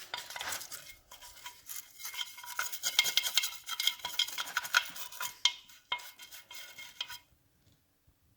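Cleaning the grime off a motorcycle's primary cover: a run of rapid scraping and scrubbing against the metal, with a faint ringing squeal through the middle, stopping about seven seconds in.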